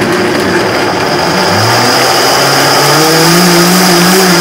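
Countertop blender running, puréeing carrot pieces in kombucha: a loud, steady grinding whir whose motor pitch rises about one and a half seconds in and then holds steady.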